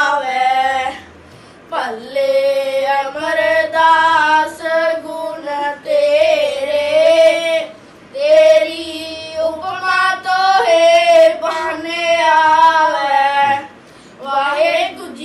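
Two boys singing a devotional song together in long, held phrases, with short breaks about a second and a half, eight and fourteen seconds in.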